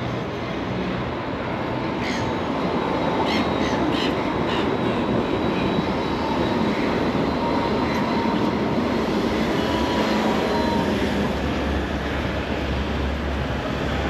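Light-rail tram running close alongside on its tracks, with a faint steady high whine over a dense rushing noise, partly wind on the microphone of the moving bike.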